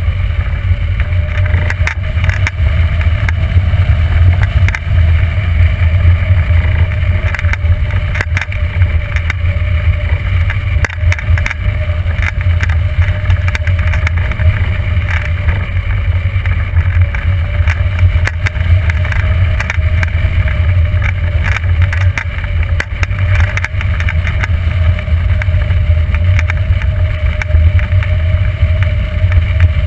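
Airflow buffeting the microphone of a glider-mounted camera during hang glider flight: a loud, steady low rumble with frequent crackles, and a faint steady tone underneath.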